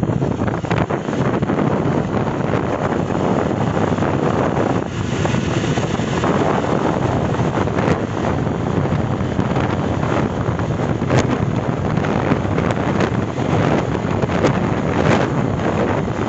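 Wind rushing over the microphone of a Honda CB Shine motorcycle on the move at highway speed, with engine and road noise underneath; the noise is steady.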